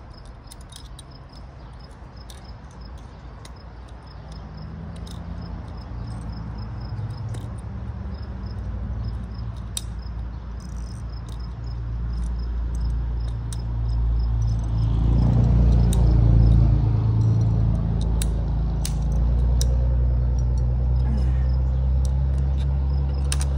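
PVC pipe cutter clicking in short strokes as it cuts through a sprinkler riser, while a motor vehicle's engine drones, growing louder from about four seconds in, loudest about two-thirds of the way through, then running steadily.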